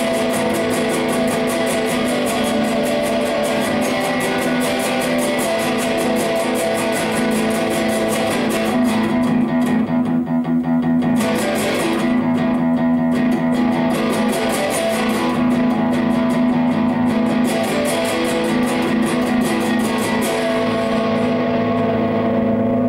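Solid-body electric guitar played loud through an amplifier in a heavy-rock style: fast strummed chords with a couple of short breaks about halfway through. Near the end a final chord is struck and left ringing.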